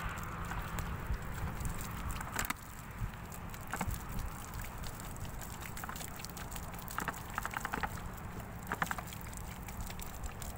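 Wind rumbling on the microphone, with water pouring from a large plastic bottle and splashing onto sandy soil in the first second. Scattered clicks and crackles follow, in short clusters later on.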